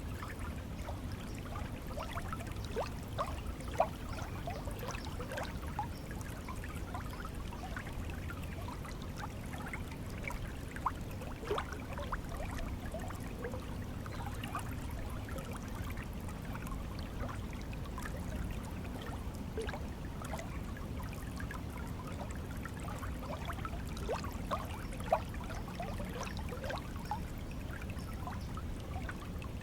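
Flowing stream water, a steady low rush with many small scattered trickling, bubbling notes.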